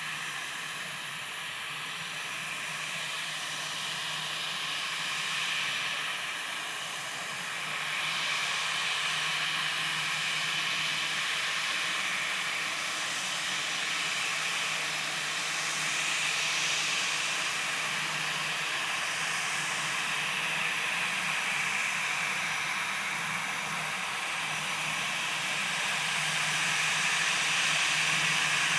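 Jet airliner's engines running at taxi power as it backtracks along the runway: a steady hissing whine with a low hum, growing somewhat louder about a third of the way in and again near the end.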